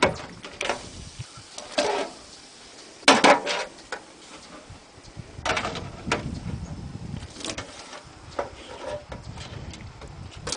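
A wooden board knocking and scraping against a stainless steel stock pot as lobsters are pushed down into boiling water: a series of irregular clunks and scrapes, the loudest about three seconds in.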